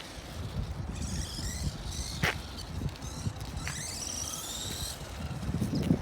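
Electric motor of a WLtoys A979 1/18 RC monster truck whining as it drives, its pitch wavering up and down in two spells with the throttle, over a low rumble, with one sharp click a little after two seconds.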